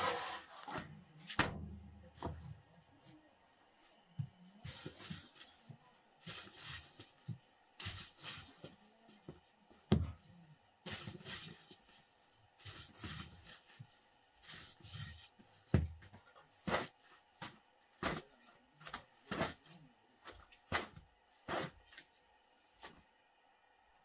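Long thin wooden rolling pin working thin flatbread dough on a cloth-covered floor: short wooden knocks and rubbing swishes, irregular, about one a second.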